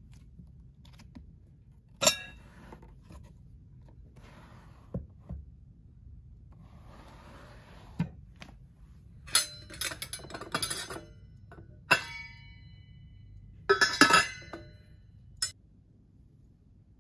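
A desk drawer pulled open and things handled, giving a series of sharp knocks, clicks and ringing clinks, the loudest a quick cluster of clinks near the end.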